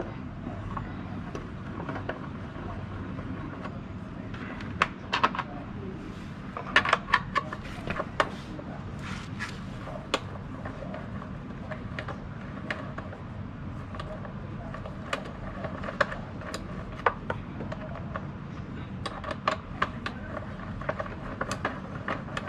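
Scattered sharp clicks and knocks of hand tools and plastic body panels being handled while taking apart a Yamaha Aerox 155 scooter, in small clusters, over a steady low hum.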